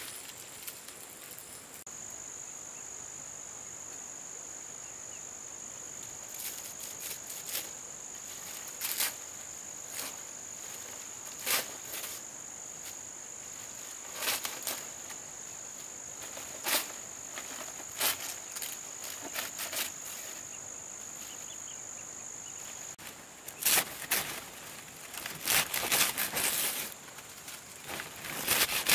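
Steady high-pitched insect drone, cricket- or cicada-like, that stops about three-quarters of the way through. Scattered clicks and rustles of handling run alongside it, becoming louder and denser rustling near the end.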